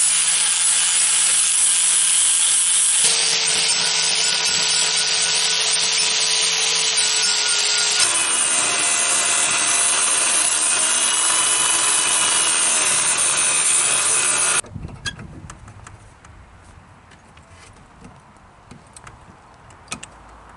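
Angle grinders running on a steel block with a steady whine: first a small grinder cleaning the surface, then a large angle grinder with a cut-off disc cutting into the steel. About fifteen seconds in the grinding stops, leaving faint scraping and light clicks of hand tools on the metal.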